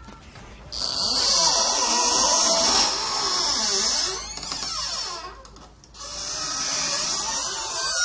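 Foley creaking of wooden planks: two long, grinding creaks with a wavering pitch, the first starting about a second in and the second after a short break.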